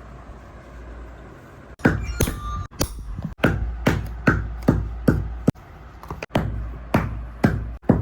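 Repeated hammer blows, about two a second, starting a couple of seconds in and keeping up a steady rhythm.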